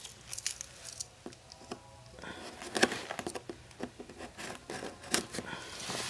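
A cardboard box being handled and a knife slitting a tape seal on it: scattered rustles, scrapes and small clicks, busier from about two seconds in.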